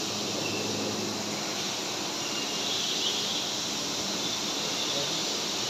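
Haas Super VF-3YT CNC vertical machining center running: a steady, hissy mechanical whir with a faint high whine, and a low hum that fades out about a second and a half in.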